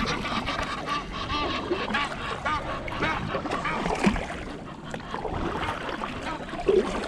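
Kayak on a river: water splashing and small knocks around the hull and paddle. In the first few seconds there is a quick run of short, repeated pitched calls that rise and fall.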